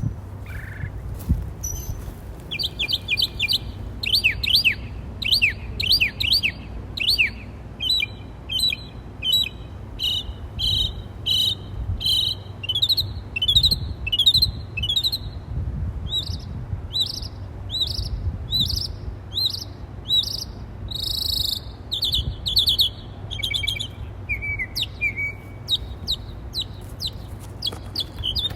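Birds chirping: quick runs of short, high chirps, several a second, calling back and forth, over a low steady rumble.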